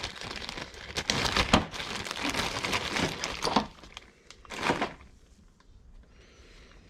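Crinkling of a plastic bag and small clicks and knocks as removed engine valves are handled, with a last rustle about five seconds in.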